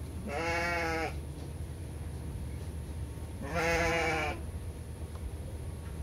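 An animal's bleat-like cry, given twice about three seconds apart, each call drawn out for under a second with a slight drop in pitch at the end.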